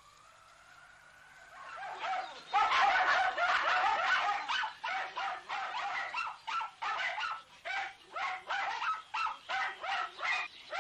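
Hunting dogs barking and yelping in rapid succession, about two to three barks a second, starting about two seconds in after a faint rising tone.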